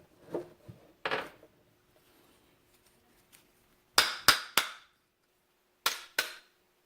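Sharp metal-on-metal knocks as an ATV CV joint is worked apart so its steel balls pop out of the cage. There are a couple of duller knocks in the first second or so, then three quick sharp strikes about four seconds in, and two more near the end.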